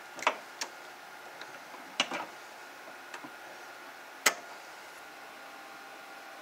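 RJ45 patch-cable plugs snapping into the ports of a Cat6 patch panel, heard as a few sharp plastic clicks: a pair near the start, a cluster about two seconds in, and the loudest a little after four seconds.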